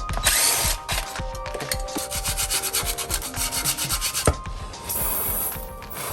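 Rapid rubbing strokes, like hand sanding, with a sharp click about four seconds in, over background music with a melody.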